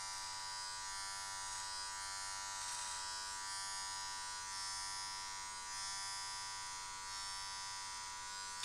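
Electric hair clipper with a guard buzzing steadily as it trims the ends of a beard, floated lightly over the hair rather than pressed in.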